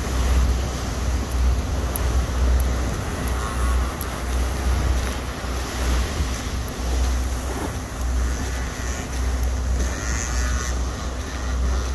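Gusty wind buffeting the phone's microphone in heavy rumbling gusts, over the steady wash of rough surf.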